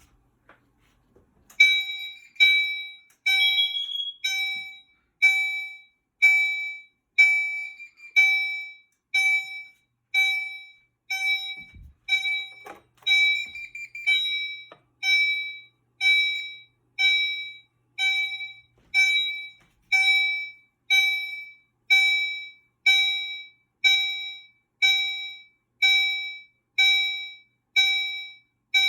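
Gentex Commander notification appliance sounding its chime tone in a steady pulse, about one chime a second, each chime dying away quickly: the carbon monoxide alarm signal, set off by testing the CO detector.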